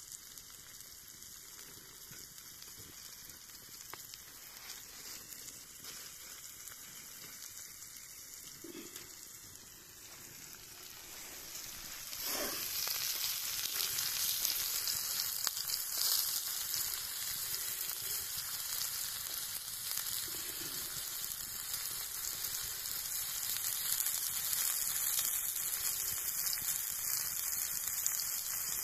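Food frying in a hot pan, a steady sizzle that gets clearly louder about twelve seconds in.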